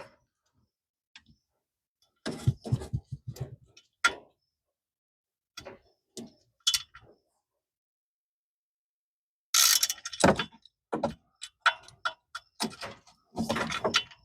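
Ratchet wrench clicking in short bursts, with metal tool knocks, as it works at a tight oil drain plug under a Polaris RZR 900 side-by-side.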